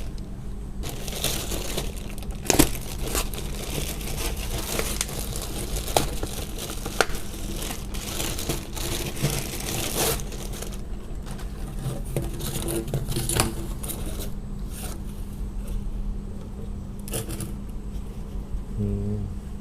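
Handling noise from DIY work on a washing machine's drain hose: irregular plastic rustling and crinkling with scattered sharp clicks and knocks, busier in the first half, over a steady low hum.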